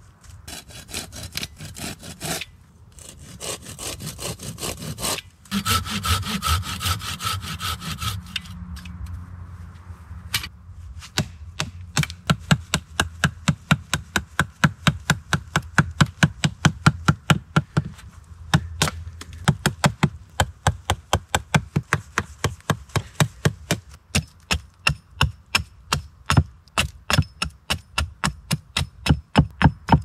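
A hand saw cutting birch wood in quick rasping strokes during the first eight seconds or so. From about eleven seconds in, a wooden baton knocks steadily on the back of a blade, about two to three sharp strikes a second, splitting a birch stick on a chopping block.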